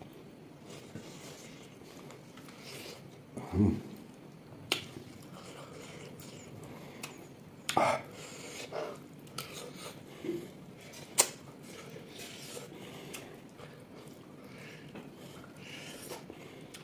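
Close-up eating sounds of a person chewing pork: wet mouth smacks and small clicks scattered throughout, with louder noises about three and a half and eight seconds in and a sharp click about eleven seconds in.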